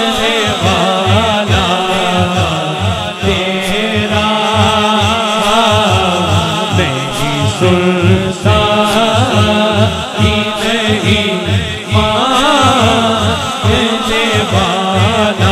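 A naat sung by male voices, the melody wavering in long ornamented lines over a chanted backing chorus, with a regular low beat throughout.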